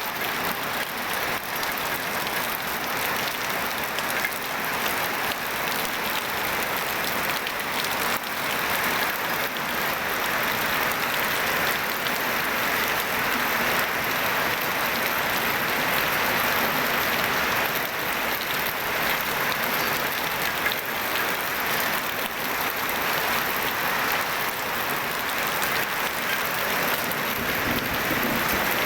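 Heavy rain falling hard: a steady, even hiss of a downpour.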